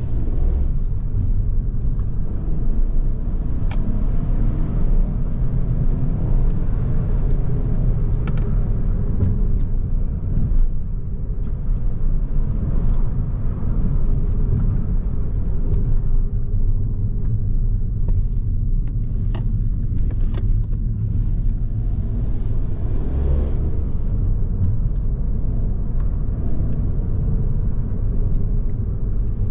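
A car driving along: the steady rumble of a Ford Focus's 1.0 EcoBoost three-cylinder petrol engine, mixed with tyre and road noise. A few faint clicks come through now and then.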